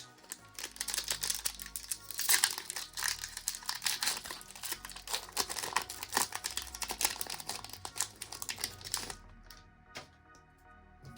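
Foil Pokémon booster pack wrapper crinkling as it is handled and opened: a dense run of fine crackles that stops about nine seconds in.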